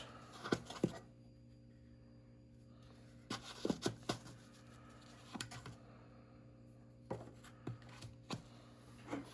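Zippo lighters being handled: scattered light clicks and taps of the metal cases and inserts, over a faint steady hum.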